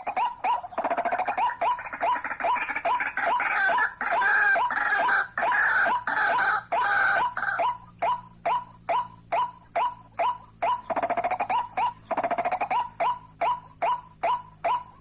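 White-breasted waterhens calling: an even run of short 'ruak' notes, about three a second, with a louder, harsh chattering over them for much of the first half and again briefly later on.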